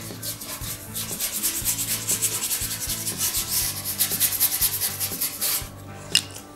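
Paintbrush scrubbing epoxy primer onto a bare sheet-steel fender in quick back-and-forth strokes, several a second, working the paint into weld seams and tiny pinholes. The scrubbing stops about five and a half seconds in, and a single sharp tap follows.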